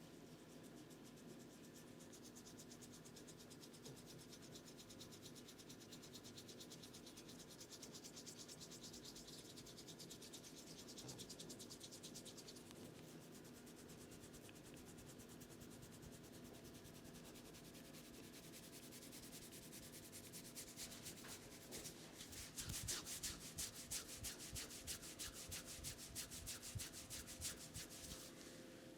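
Hands rubbing briskly over hair and scalp in a head massage: quick rhythmic rubbing strokes, faint at first and clearly louder about two-thirds of the way in.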